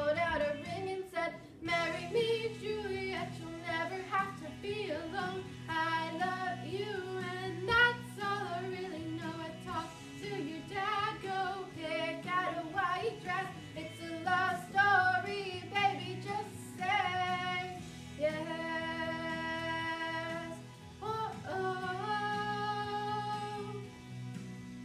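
A woman's voice singing a pop ballad over instrumental backing, with a couple of long held notes near the end.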